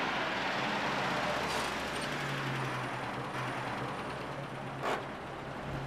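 A pickup truck's engine running as it pulls up and idles, with a steady low hum from about two seconds in. A single click comes near the end.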